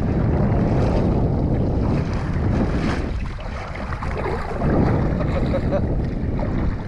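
Wind buffeting the microphone on a small boat on the water, a rough, unsteady rumble over the sound of the water.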